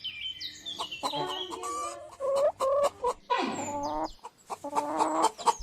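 Hen clucking in a run of short, pitched calls, with a few high, falling bird chirps at the very start.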